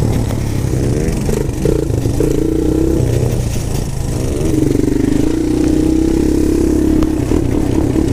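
Four-wheeler (ATV) engine running under way from an onboard mount, its revs rising and falling through the first half and then held steady from about halfway.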